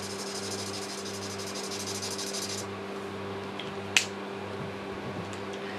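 Marker nib scribbling rapidly on paper, a fine dry scratching that stops about two and a half seconds in, then a single sharp click just before four seconds. A fan's steady low hum runs underneath.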